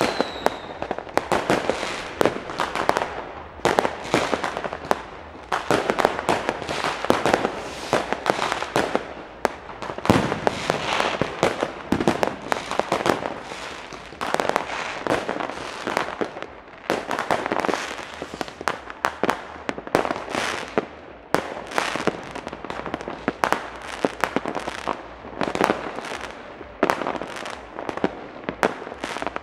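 New Year's fireworks and firecrackers going off in a dense, continuous barrage of overlapping bangs and crackles. A short falling whistle sounds at the very start.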